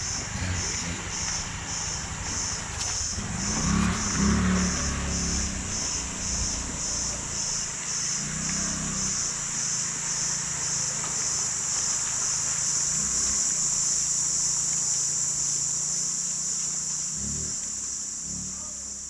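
Insects shrilling loudly, pulsing at first and then steady, over a low rumble that swells a few times.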